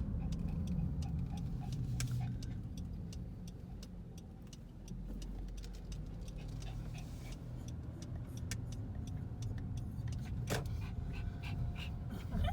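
A vehicle driving on a street: a steady low rumble of engine and tyres, with frequent small rattles and clicks.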